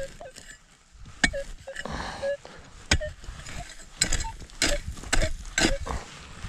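Long-handled pointed digging spade chopping and scraping into dry, grassy soil: a series of sharp strikes with loose dirt scraping between them, quickening in the second half.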